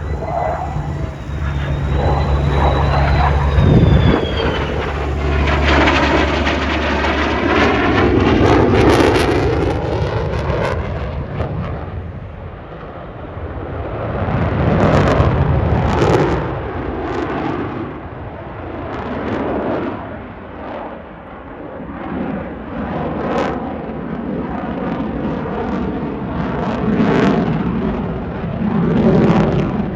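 Jet noise from a USAF F-35 Lightning II's single turbofan engine as the fighter flies its display. The sound swells and fades several times with sweeping, whooshing shifts in tone as the jet passes and turns.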